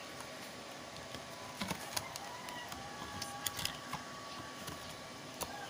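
Scattered light clicks and taps of a laptop hard drive being handled and pushed into a laptop's drive bay, about seven sharp ticks spread over a few seconds.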